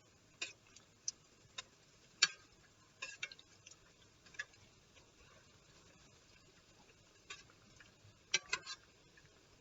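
Zeppole dough balls frying in hot vegetable oil in a skillet: a faint steady sizzle with scattered sharp pops and crackles, a cluster of them near the end.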